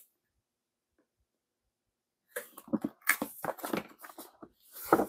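Handling of a shrink-wrapped cardboard box set: plastic-wrap rustling, cardboard scraping and light knocks as it is laid on a table and opened, starting a couple of seconds in and growing busier near the end.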